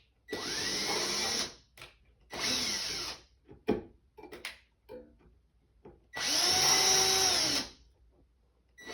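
Power drill run in three short bursts, its motor pitch sweeping as the trigger is squeezed and eased. The last burst is the longest and loudest.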